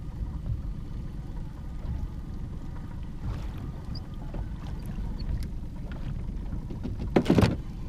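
Low steady rumble of wind and water around a small boat drifting on a calm lake, with a few faint clicks. Near the end comes one short, loud burst of noise, a knock or rustle of handling.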